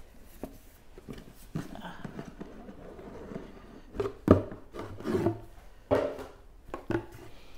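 A cardboard gift box and its packaging being handled and opened by hand: irregular rubbing and rustling with a few knocks. The loudest knock comes about four seconds in.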